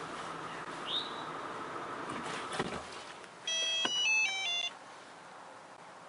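A 2008 Honda Odyssey's V6 idling on remote start cuts off about two and a half seconds in as the brake pedal is pressed, the remote start's safety shutdown. About a second later the two-way remote start fob plays a short tune of stepped electronic beeps.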